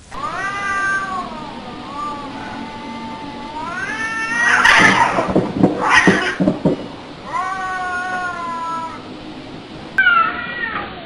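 A cat giving long, drawn-out meows, with two louder, harsher cries in the middle. Shortly before the end the sound cuts to another stretch of meowing.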